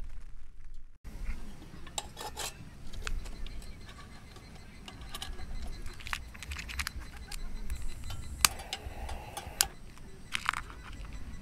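Feuerhand 276 hurricane oil lantern being handled for lighting: scattered light metallic clinks and rattles from its wire frame and globe lift, with several sharp clicks spread through, over a low steady rumble.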